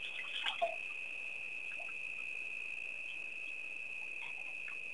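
Insects trilling steadily at one high pitch, with a few short chirps and clicks in the first second.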